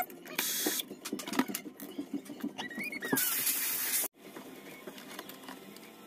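Small clicks, scrapes and rattles of wires and plastic parts being handled inside an opened espresso machine, with two short hissy rustles and a brief squeak that rises then falls. The sound cuts off sharply about four seconds in, leaving quieter room tone.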